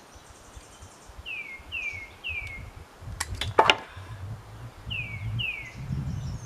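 A bird repeating a short down-slurred chirp, three times and then twice more. About three seconds in comes a quick run of sharp clicks: the master link cap being worked onto a motorcycle drive chain.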